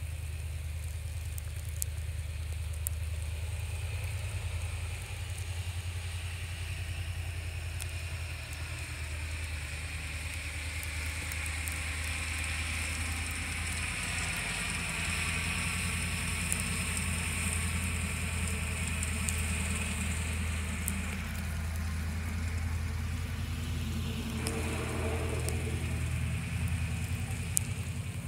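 Steady low engine hum, with a hiss that swells and fades in the middle, as of a vehicle passing, and scattered light ticks.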